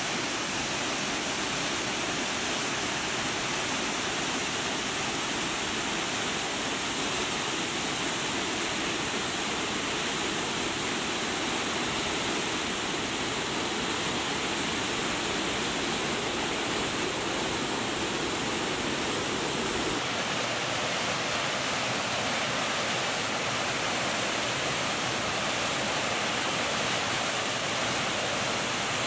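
Multnomah Falls: a steady, even rush of falling water. About twenty seconds in the sound shifts a little and loses some of its low rumble.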